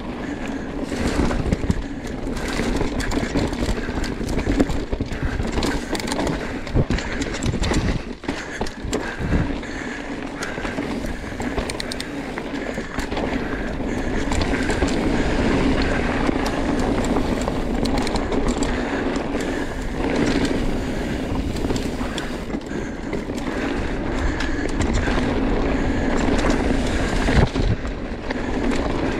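Mountain bike riding a dirt forest trail: knobby tyres rolling over the dirt with a steady rumble, and the bike's chain and frame rattling and clicking over bumps and roots.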